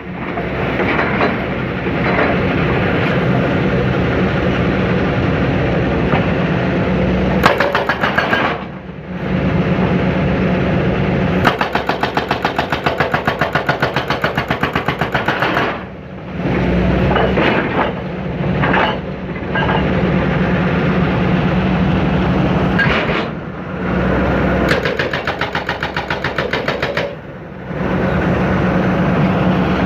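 John Deere 160C excavator's diesel engine running under load while a hydraulic breaker hammers the concrete silo base. The blows come in several bursts of rapid, evenly spaced strikes, the longest lasting about four seconds.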